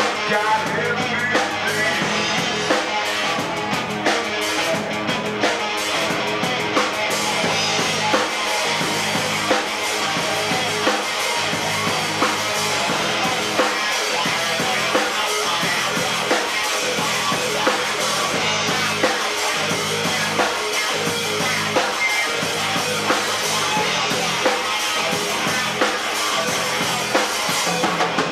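Live rock band playing an instrumental passage with no singing: electric guitar over a drum kit keeping a steady beat.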